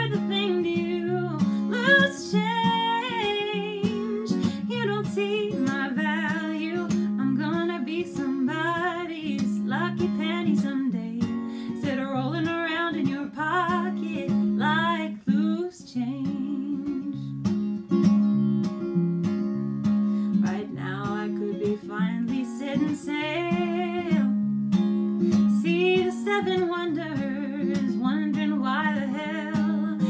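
A woman singing while accompanying herself on acoustic guitar.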